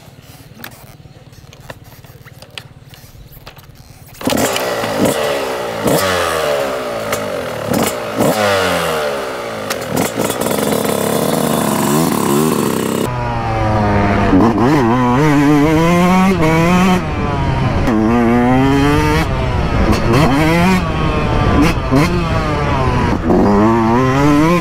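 Yamaha YZ125 single-cylinder two-stroke motocross engine revving. After a few quiet seconds with faint clicks, the engine comes in loud about four seconds in with rising and falling revs. From about thirteen seconds on the sound changes to repeated quick blips of the throttle, the revs swinging up and down.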